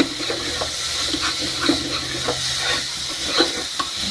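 Soaked rice and spices sizzling in hot oil in a pressure cooker while being stirred, with a spoon scraping the pan at irregular moments about every half second over a steady hiss.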